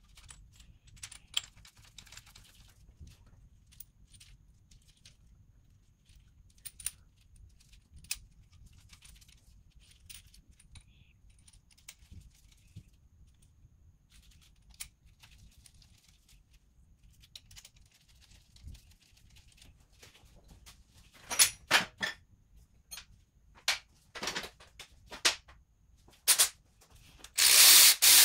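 Metal camshaft bearing caps and bolts being handled and set onto a Toyota 2AZ cylinder head: sparse light clicks and clinks, with a run of louder knocks a few seconds before the end. Near the end a cordless ratchet starts up, running the cap bolts down.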